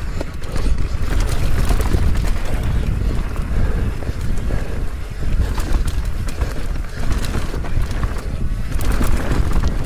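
Mountain bike descending a rough trail, heard from a rider-mounted camera: heavy wind buffeting on the microphone under a constant clatter of tyres and frame over rocks and roots.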